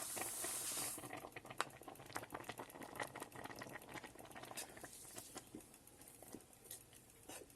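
Milk and vermicelli bubbling at the boil in an open steel electric kettle, with many small irregular pops and crackles. A short hiss rises over it in the first second.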